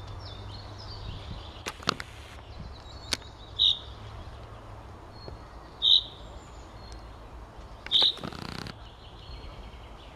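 Common chaffinch calling: three loud, short, sharp notes about two seconds apart, with fainter high notes from other birds between them.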